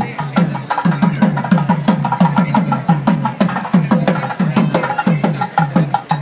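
Percussion music: a fast, even run of drum strokes, about five or six a second, each dropping slightly in pitch, with lighter clicking strokes above.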